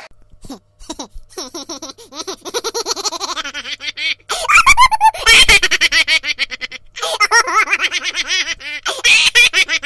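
A laughing ringtone: rapid giggling laughter in quick bouncing bursts, loudest from about four and a half to six and a half seconds in, with short breaks near four and seven seconds.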